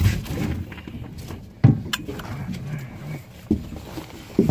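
Scattered knocks and thumps from handling aboard a boat as a sturgeon is netted and brought in. The sharpest knock comes a little over a second and a half in.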